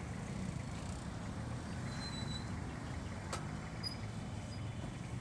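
Motorcycle taxi engine running at low speed in slow, dense traffic, a steady low hum mixed with the noise of surrounding vehicles. A single sharp click about three seconds in.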